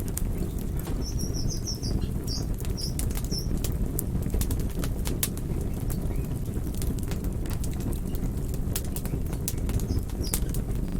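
Campfire burning with a steady low rumble and irregular sharp crackles and pops. A small bird chirps briefly a few times, about a second in and again near the end.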